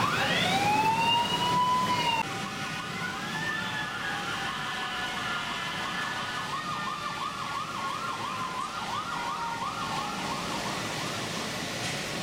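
An emergency-vehicle siren: a wail that rises and holds for about two seconds, then, after a sudden drop in level, a run of repeated rising-and-falling whoops that come faster toward the end.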